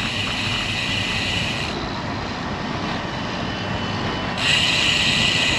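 Steady wind rush on the bike-mounted camera's microphone while riding into a headwind, with low rumble from the tyres on the path. A brighter hiss in the rush drops away about two seconds in and returns near the end.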